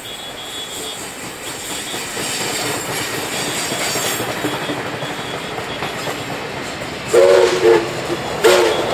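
Heritage passenger carriages rolling by with a clickety-clack that grows louder as NSW 59 class 2-8-2 steam locomotive 5917 draws near. About seven seconds in, its whistle sounds two quick blasts, then a third about a second later.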